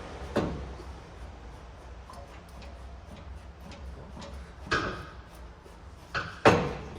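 Sharp knocks and clunks from the factory exhaust being worked off the truck, with small ticks between them and the loudest two knocks close together near the end.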